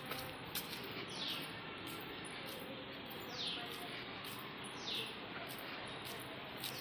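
A bird calling outdoors: a short, high, falling whistle repeated every one and a half to two seconds, over a steady faint background hiss.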